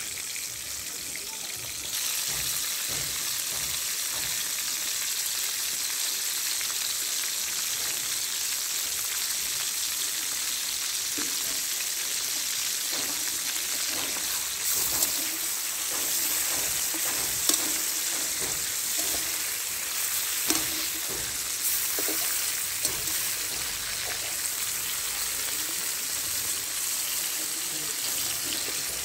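Chicken pieces frying in hot oil in a large metal wok: a steady sizzle that grows louder about two seconds in. Now and then a metal spatula scrapes and knocks against the pan as the pieces are stirred.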